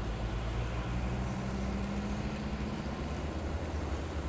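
Steady in-car road noise while driving on a wet road: a low engine hum with tyre hiss, heard from inside the cabin.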